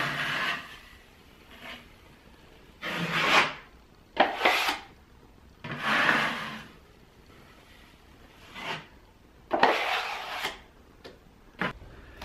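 Wide steel taping knife scraping across a drywall ceiling, skimming wet joint compound smooth: about six long scraping strokes a second or two apart, then two short ticks near the end.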